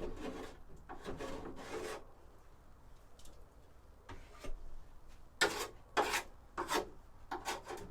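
Hand rubbing strokes of cleaning work on a part, a run of strokes in the first two seconds, a pause, then several short, sharper strokes in the second half.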